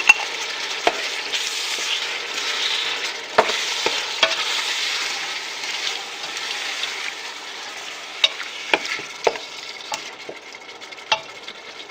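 Chicken gizzards, onion and tomato sauce sizzling in hot oil in a pot while being stirred, with a utensil clicking sharply against the pot about nine times. The sizzle eases off somewhat in the second half.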